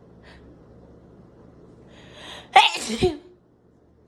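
A woman sneezes once: a rising breathy intake for about half a second, then a loud, sudden sneeze a little over two and a half seconds in.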